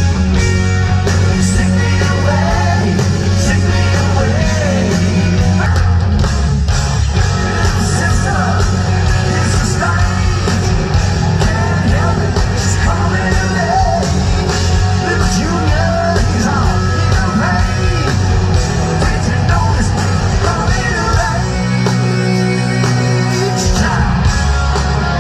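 Live rock band playing loudly through a large PA: electric guitars, bass, drums and keyboards, with a male lead vocal singing over them.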